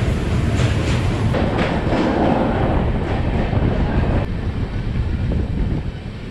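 Moving passenger train heard from an open coach doorway: a steady rumble of the wheels on the track with repeated clacks.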